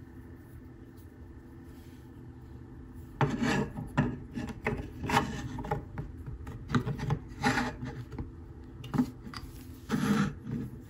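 Metal-cased gear motors being pushed and slid into 3D-printed mount blocks by hand: a string of irregular rubbing and scraping noises starting about three seconds in.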